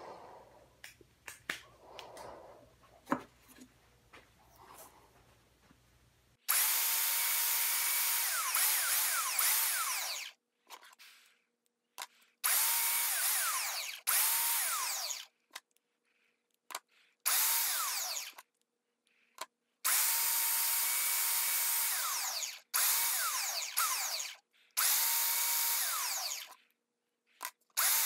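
Skil handheld belt sander, clamped on its side, running while a purpleheart hardwood spinner blank is pressed against the belt to sand it down to the marked lines. The sanding comes in about eight separate stretches of one to four seconds, each cut off suddenly. Before it, some light clicks and rustles of handling in the first six seconds.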